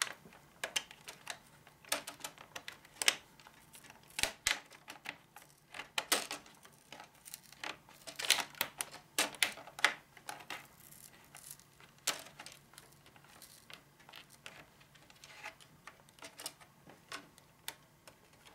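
Plastic screen bezel of a Lenovo T500 laptop being prised off the display lid by hand: scattered small clicks and crackles at irregular intervals as it comes loose.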